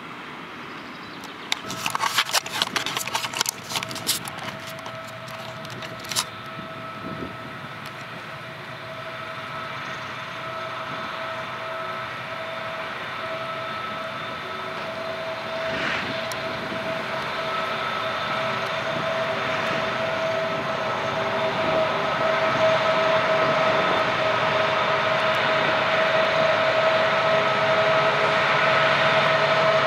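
TGM6D diesel-hydraulic shunting locomotive hauling tank wagons: a steady engine and transmission whine over a running drone, growing louder as it approaches. A rapid flurry of sharp metallic clanks comes in the first few seconds.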